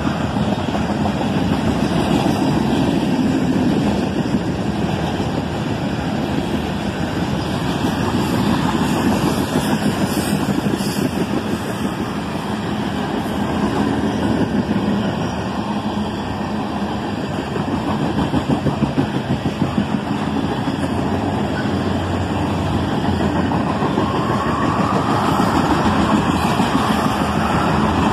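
Freight cars of a long train rolling past: a steady rumble and rattle of steel wheels on rail, with a rising whine near the end.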